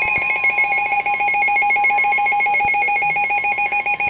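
Emergency Alert System attention signal received on NOAA Weather Radio: a loud, harsh, steady two-tone alarm with a fast flutter, announcing a severe thunderstorm warning. It cuts off at the very end.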